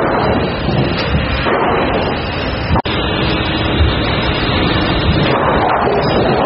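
Sawmill lumber sorting line running: chain conveyors rattling and clattering in a loud, steady machine din, with occasional thuds of boards on the deck.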